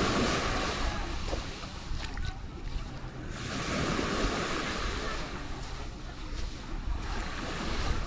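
Small waves breaking and washing up a sandy beach, the surf swelling about every four seconds.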